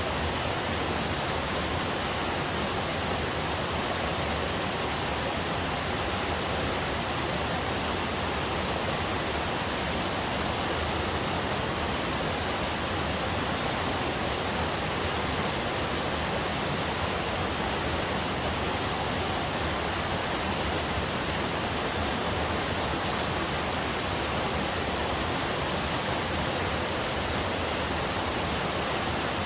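Small forest waterfall on a river, water pouring and rushing in a steady, unbroken hiss.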